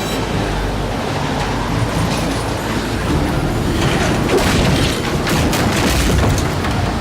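Loud, dense rumbling noise with deep booms.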